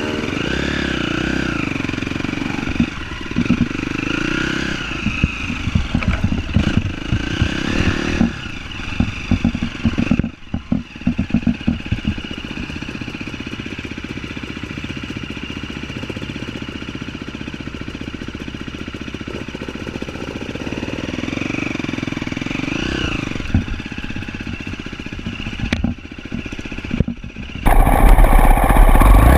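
Off-road vehicle engine running and revving up and down, with bursts of rattling and knocking in the first half as it goes over rough ground. Near the end the sound suddenly becomes much louder, with a heavy rumble.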